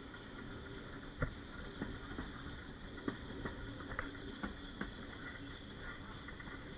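Steam-hauled passenger coach running along the track: a steady rolling rumble with irregular sharp clicks and knocks from the wheels and coach, the loudest about a second in and about three seconds in.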